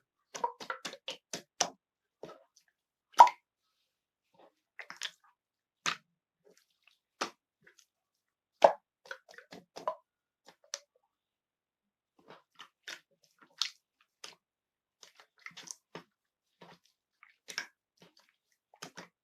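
Slime being squeezed and poked by hand, giving irregular wet plops and popping clicks from trapped air, with a few louder pops.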